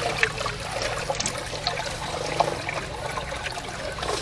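Water trickling and pouring into a flooded, muddy grave pit, with small splashes and crackles, over a steady low machine hum.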